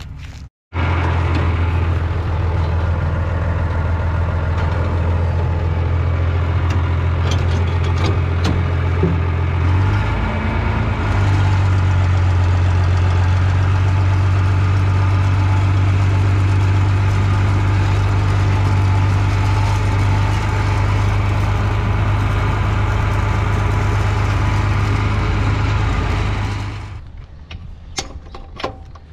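Tractor engine running steadily, heard from the driver's seat, with a slight shift in pitch about ten seconds in. It gives way near the end to quieter sound with a few clicks.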